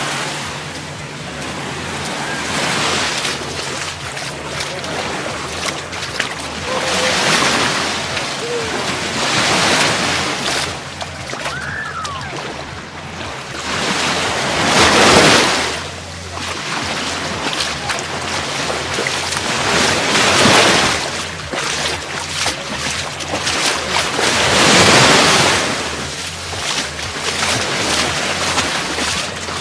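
Gulf of Mexico surf: small waves breaking and washing up on a sandy beach, swelling and fading every four or five seconds, loudest about halfway through and again near the end.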